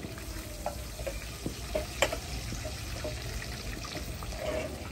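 Flatbread dough frying in hot oil in a wok, a steady sizzle, with metal utensils clinking against the pan a few times, the sharpest clink about two seconds in.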